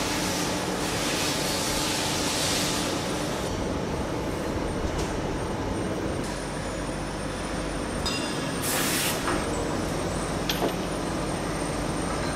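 Machine-shop noise from running machinery: a steady hum and hiss, with a short burst of brighter hiss about nine seconds in and a few light clicks just after.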